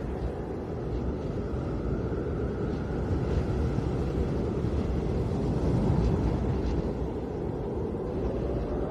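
Snowstorm wind blowing steadily with a deep, low rumble, and a faint whistle wavering above it.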